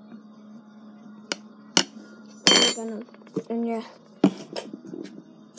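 A metal spoon clinking and knocking against a plastic cup: a handful of sharp knocks, the loudest ringing briefly about two and a half seconds in.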